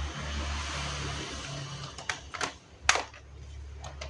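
A laptop battery being fitted into its bay: about two seconds of plastic scraping and handling, then several sharp plastic clicks, the loudest about three seconds in.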